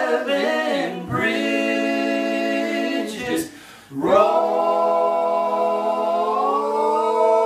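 Three men singing together in close harmony, mostly without instruments, holding long sustained chords. The voices break off briefly about three and a half seconds in, then come back on one long held chord.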